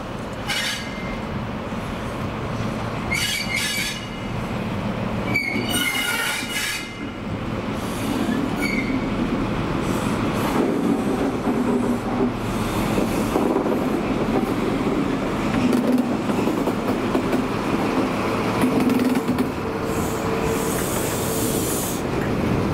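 HST passenger train running along the rails, with several short high-pitched wheel squeals in the first nine seconds. After that comes a steady rumble that grows a little louder, with a faint steady hum near the end.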